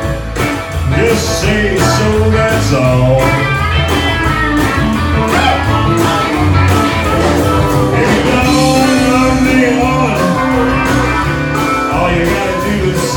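A live honky-tonk country band playing, with guitar over bass and drums keeping a steady beat.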